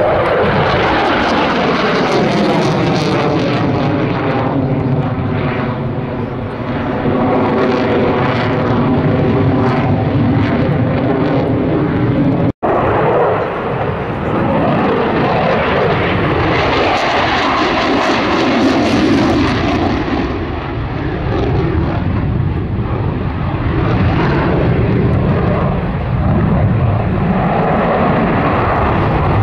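Loud, continuous jet engine noise from a delta-wing fighter jet flying a display overhead. In the first several seconds a whistling set of tones slides down in pitch as it passes. The sound cuts out for an instant about twelve seconds in.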